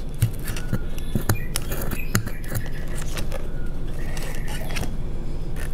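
Light clicks and scrapes of small plastic nursery pots being handled and shifted in a cardboard tray, over a steady low background hum.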